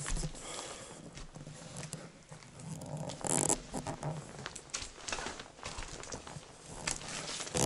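Footsteps knocking and crunching over debris-strewn wooden floorboards, with scattered small clicks and a brief louder scuff about three and a half seconds in.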